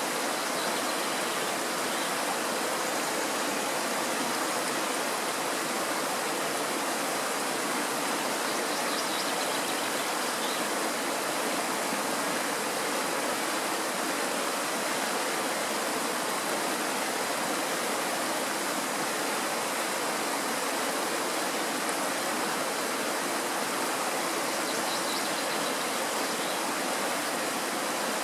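Shallow mountain stream rushing over cobbles and a small riffle, a steady, even rush of water that does not change.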